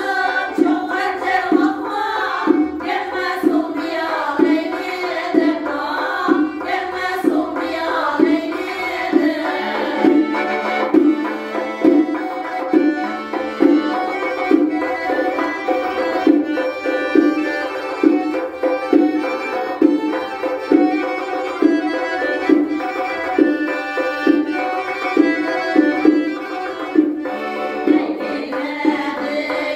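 Live folk music: singing accompanied by a piano accordion and a doira frame drum beating a steady rhythm, a little more than one stroke a second. For a long stretch in the middle only the accordion and drum play, and the singing comes back near the end.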